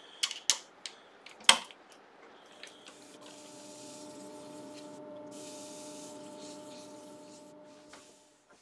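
A few sharp metal clicks and knocks as the lathe chuck is worked with a chuck key. Then the wood lathe runs for about five seconds with a steady hum, with the hiss of the vase's base being sanded against a pad spinning in the chuck, and winds down near the end.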